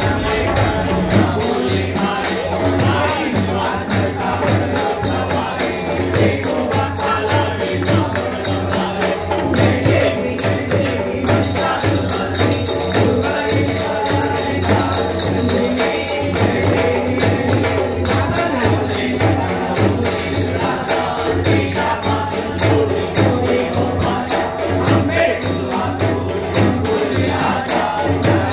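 A group of men singing a devotional Hindu aarti together, accompanied by a steel-shelled drum beaten in a steady rhythm and jingling percussion.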